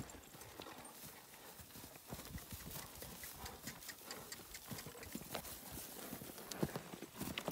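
Hoofbeats of horses walking over dry grass and dirt, an uneven run of dull thuds.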